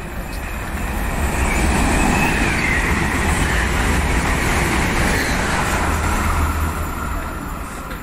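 Renfe long-distance passenger train passing through a station at speed: a rushing rumble of wheels on the rails that builds over about two seconds, holds loud, then fades as the train goes by.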